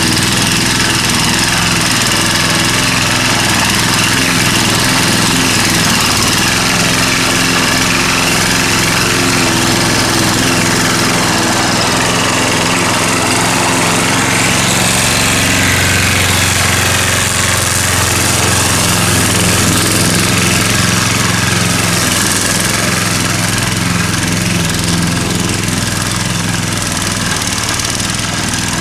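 Pull-start petrol lawn mower engine running steadily under load while cutting grass, its note shifting slightly about halfway through.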